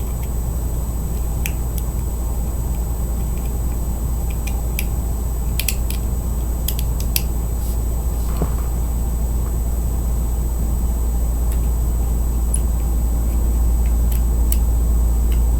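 Steady low hum throughout, with scattered light clicks and ticks of a small fingerboard tool working on the metal truck bolts and hardware.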